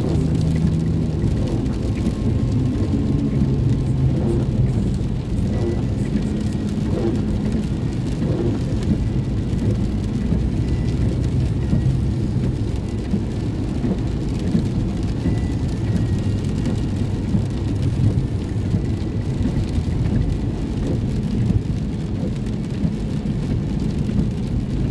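Steady low rumble inside a car's cabin while driving on a wet freeway in rain: tyre and engine noise mixed with rain on the car.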